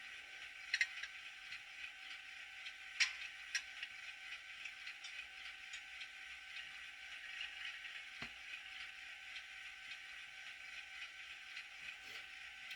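Faint, steady diesel idle sound from the sound decoder of an N scale GE C39-8 model locomotive, played through its tiny onboard speaker, with a few scattered light clicks.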